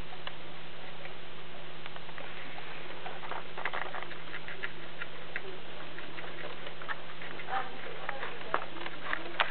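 Soft, irregular ticks and rustles from a baby gerbil moving about, heard over a steady electrical hum and hiss.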